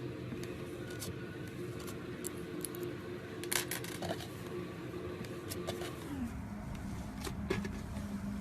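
A steady motor-like hum that glides down to a lower pitch about six seconds in, with scattered sharp clicks and crackles over it.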